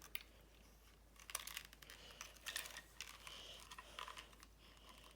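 Faint scattered clicks and light rustling of small plastic toy parts being handled, as a snap-on elephant face piece is worked onto a toy train engine.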